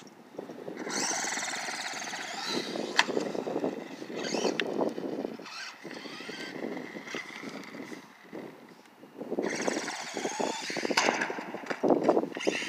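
Redcat Volcano 18 electric RC monster truck driving on rough concrete: its motor and gears whine while the tyres rattle over the surface, in two runs separated by a lull of a few seconds, with a sharp knock about three seconds in.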